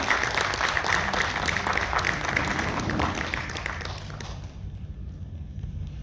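Audience applauding, the clapping dying away about four seconds in and leaving a low steady hum.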